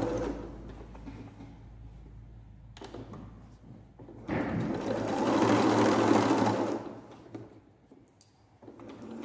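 Domestic electric sewing machine top-stitching through thick upholstery fabric. It runs for a moment at the start and stops, then sews a steady run of stitches from about four seconds in for two to three seconds before stopping again.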